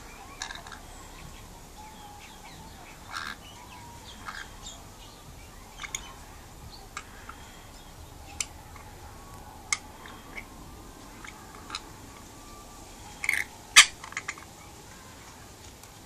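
Rainbow lorikeet giving short, sharp chirps and clicks at irregular intervals, with a louder pair of calls near the end.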